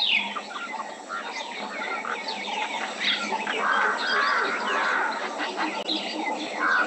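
A flock of birds calling and chirping over one another in a dense, continuous chatter.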